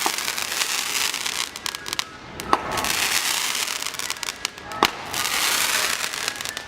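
Fireworks going off: a dense crackling with a few sharp bangs, one right at the start, one about two and a half seconds in and one near five seconds.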